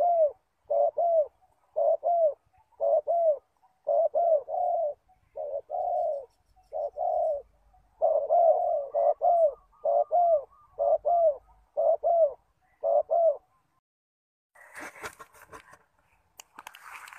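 Spotted dove cooing: a steady run of short, mellow coos in groups of two and three, which stops about thirteen seconds in. Near the end a crackling, rustling noise starts.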